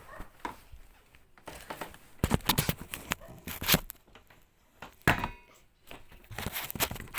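Rustling, scraping and light knocks of hands working inside a washing machine while fitting its drive belt, in irregular bursts with a few sharp clacks.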